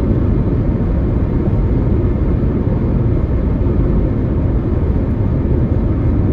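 Steady road and wind noise inside a moving car's cabin at driving speed, a dense low rumble with no distinct events.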